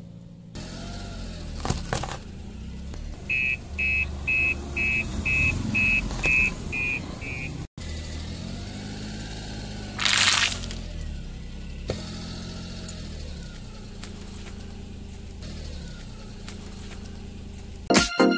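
Car engine running low as the tyre rolls onto objects on asphalt, with a row of about nine evenly spaced electronic beeps a few seconds in. About ten seconds in comes a short loud crunch as the tyre crushes clear plastic dessert cups; music starts at the very end.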